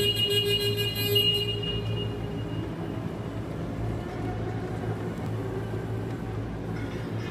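Raymond Easi R40TT-M battery-electric reach truck being driven, with a high whine from its electric drive during the first two seconds that then fades, over a steady low hum.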